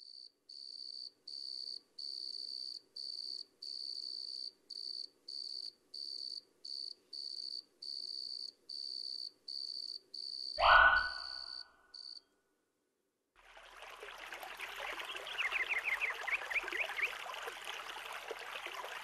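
A cricket chirping steadily, about three chirps every two seconds, for the first twelve seconds. About ten seconds in, one short loud sound sweeping up in pitch cuts across the chirping. After a brief gap a steady rushing hiss sets in, with a quick run of chirps in the middle of it.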